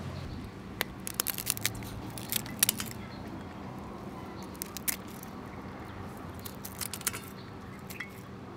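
Kitchen scissors snipping through the shell and legs of raw tiger shrimp: a quick run of sharp snips in the first few seconds, then single snips every second or two.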